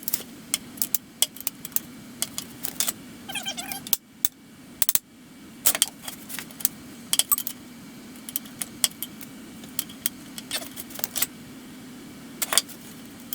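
Ratchet wrench clicking in short runs as it turns the screw of a bushing press, forcing a lower control arm bushing out of the control arm, with a brief squeak about three seconds in. A steady low hum runs underneath.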